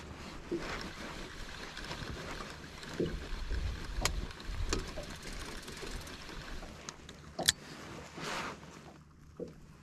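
Water lapping and splashing against the hull of a small drifting boat, with a few sharp clicks and knocks. The loudest click comes about three-quarters of the way through.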